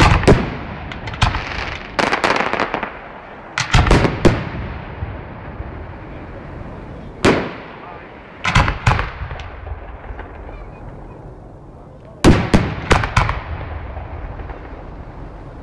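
Aerial firework shells bursting: loud sharp bangs, some single and some in quick clusters of two to four, each trailing off, with a steady hiss between them.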